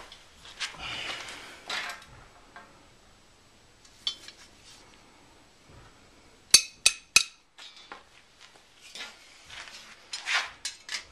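Tongs forged from 1/2-inch rebar clinking and scraping against a flat steel bar, with three sharp ringing metal clinks in quick succession a little past the middle.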